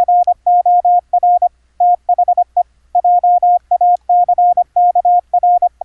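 Morse code sidetone from a 555-timer oscillator through a Hi-Per-Mite CW filter: a single steady mid-pitched tone keyed on and off in dits and dahs, sent automatically from a K1EL keyer's memory.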